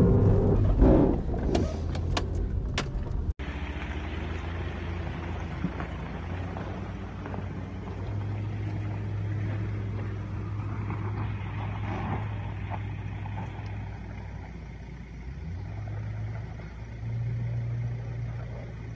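Subaru Outback engine running at low revs while driving over rough track, with several knocks from bumps in the first few seconds. The sound then cuts abruptly to a steadier, quieter engine drone that rises a little with the throttle twice later on.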